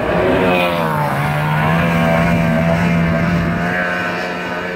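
Outboard racing boat's engine running at high revs as it passes: its pitch drops in the first second, then it holds a steady high whine as the boat pulls away up the channel.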